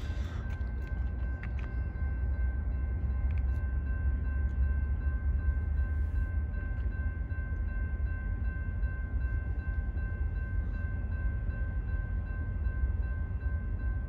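Steady low rumble of an approaching diesel freight train, with several faint, steady high-pitched tones held above it.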